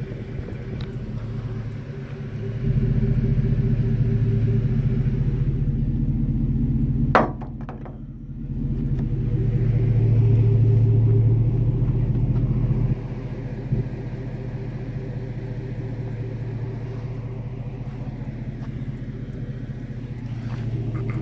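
2016 Chevrolet Silverado's 5.3-litre V8 running at a steady idle through a Flowmaster 40 single-in, dual-out exhaust, a deep rumble that swells and drops in level several times without any change in pitch. There is a brief sharp knock about seven seconds in.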